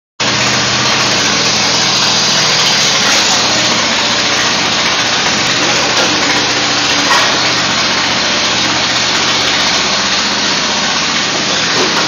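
Engine-driven hydraulic power unit of a compressed earth block press running steadily and loudly, with a couple of short knocks about six and seven seconds in.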